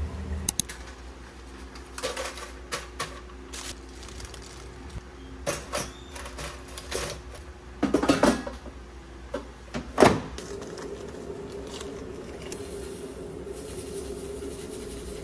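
Kitchen handling sounds: scattered clicks and clatters of dishware and plastic, then a louder clatter about eight seconds in as an air fryer basket is pulled out, and a sharp knock about ten seconds in. A steady hum runs underneath.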